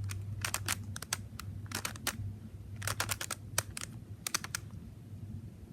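Rubik's cube layers being turned by hand: quick clusters of sharp plastic clicks, a few turns at a time with short pauses between, over a faint steady low hum.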